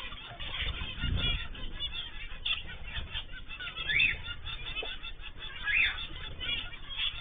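Pet cage birds chirping and calling together, with a few louder rising calls about four and six seconds in.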